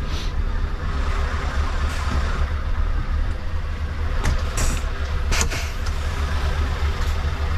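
Heavy truck's diesel engine running low and steady, heard from inside the cab, with a few light clicks a little past the middle.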